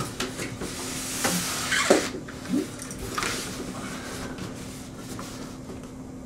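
A cardboard shipping box being opened: the tape across the top is cut and the flaps are pulled back, with scraping, rustling cardboard and a few sharp knocks in the first half.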